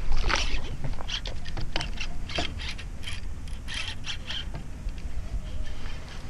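Fishing reel clicking and ratcheting in irregular bursts as line is worked on the rod, fading out after about four and a half seconds.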